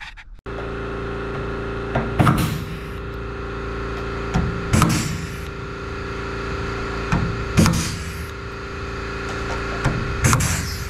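Pneumatic rivet puller setting aluminium blind rivets, four in all: each a sharp snap followed by a short hiss of air. A steady mechanical hum runs underneath.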